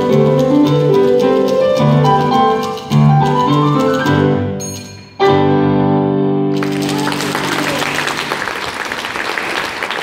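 Grand piano playing the closing bars with a typewriter's key clatter as the percussion part, ending on a loud held chord about five seconds in; audience applause follows from about seven seconds in.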